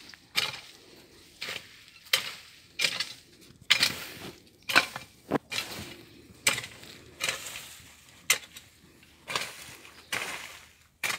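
Hacking through brush with a hand-swung blade or tool: sharp chopping strikes with the crack and rustle of branches and leaves, about a dozen at an uneven pace of roughly one a second.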